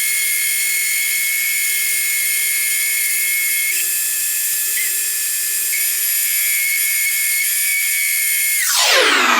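Machine-tool spindle motor running at high speed with a steady high-pitched whine. Near the end it winds down to a lower speed and keeps running.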